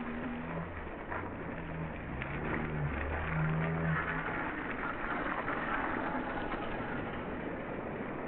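Cyclocross bikes riding through a muddy puddle, their tyres splashing and churning the water, loudest about halfway through. A low droning hum runs underneath during the first half.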